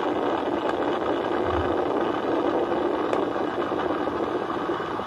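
Artemis I Space Launch System rocket climbing off the pad with its four RS-25 core-stage engines and two solid rocket boosters firing: a steady, dense rush of exhaust noise with a few sharp crackles.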